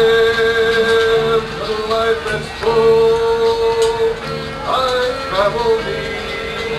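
A man singing, holding long notes of about a second and a half each, with gliding syllables between them, over a low steady musical accompaniment.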